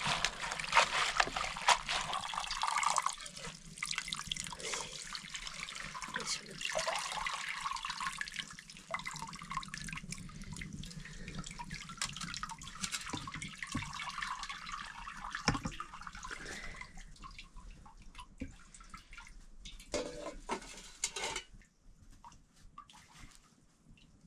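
Water splashing and trickling, with small clicks and knocks of handling, loudest at the start and dying away near the end.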